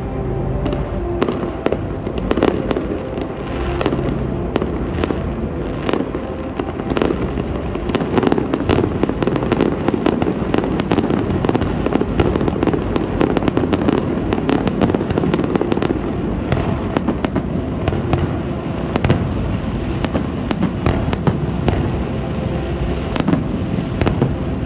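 Fireworks display: a rapid barrage of shell bursts, bangs and crackles, densest from about eight to sixteen seconds in.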